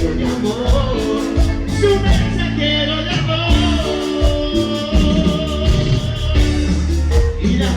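A live band playing Latin dance music: a steady beat with a bass line and a held melody line, with no lyrics sung.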